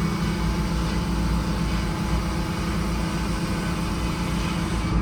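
Bus engine powering a sawmill, running with a steady drone.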